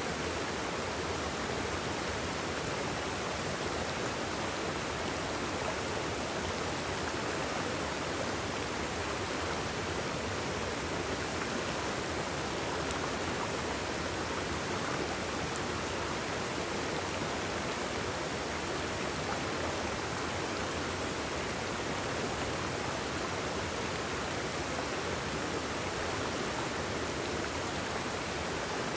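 Mountain stream running over rocks and a small cascade: a steady, even rush of water.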